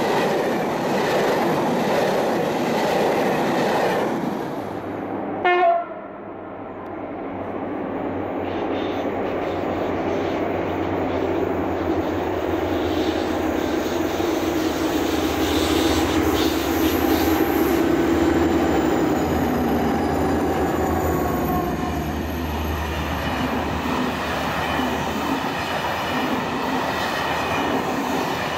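Coaches of a train rolling past with rail clickety-clack, then a brief horn note about five seconds in. A BB 67400 diesel locomotive hauling a train of night-train coaches then approaches, its engine hum growing louder as it nears, and the coaches rumble by.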